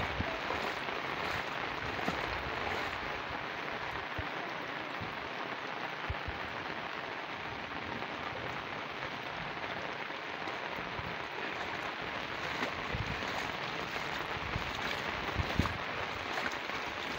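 Heavy rain falling steadily on a waterlogged field and its flooded furrows, a continuous even hiss, with a few soft low thumps here and there.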